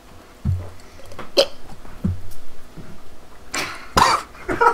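A man gulping down a glass of spirit in three or four swallows, then coughing and gasping at its sting near the end.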